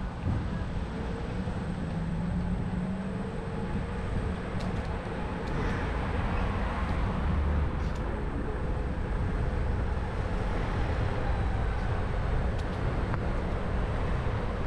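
Steady vehicle rumble with a low engine hum.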